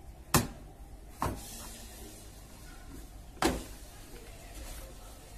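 Plastic side-panel locks of a Symphony air cooler clicking into place as they are pressed home with a tester screwdriver: three sharp clicks, the first and last the loudest.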